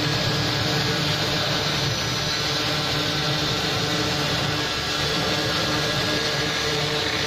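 Spindle of a 4-axis CNC router milling a block of white foam: a steady whirring hiss with a low hum underneath, unchanging throughout.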